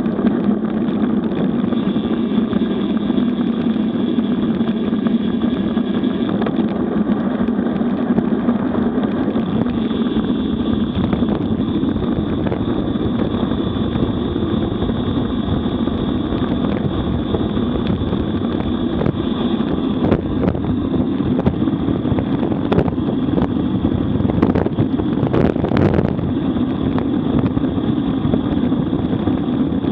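Steady rush of wind buffeting a bike-mounted camera's microphone during a fast road-bike descent at around 40–60 km/h. A brief louder burst of noise comes a few seconds before the end.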